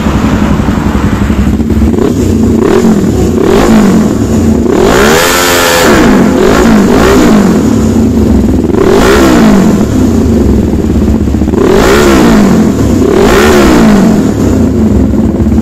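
Suzuki GS500's 487 cc parallel-twin engine running through an aftermarket SC Project slip-on exhaust in an underpass. It idles between about eight quick throttle blips, one held for about a second midway. The catalytic converter is still in the pipe.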